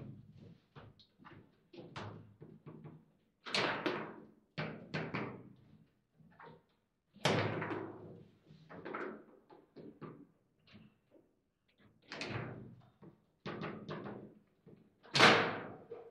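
Foosball table in play: the hard ball clacking off the plastic players and the table walls, with rods knocking against their bumpers, in irregular sharp knocks and quick clusters. The loudest knock comes near the end, from a hard shot.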